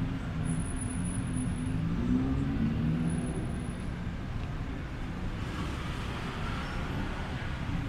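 Street traffic, with a motor vehicle's engine running close by. A broader hiss of passing traffic comes in just past halfway.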